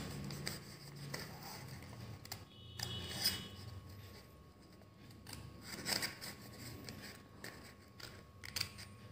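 Small scissors snipping into folded paper to cut a coin slot, with a handful of short, scattered snips.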